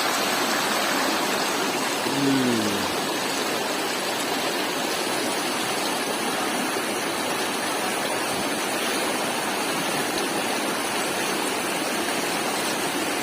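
River water rushing steadily, an even continuous noise, with a brief vocal sound about two seconds in.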